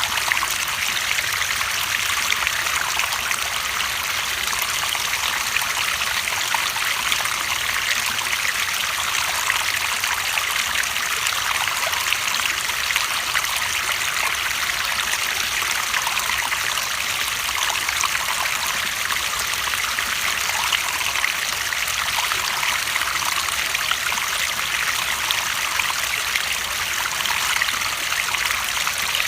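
Running water trickling and burbling steadily, like a small stream.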